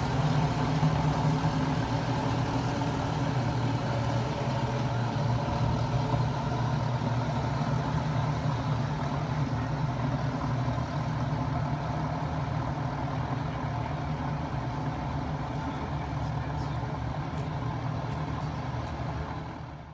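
Seven Marine 627 supercharged V8 outboard engines idling at a steady pitch, fading out right at the end.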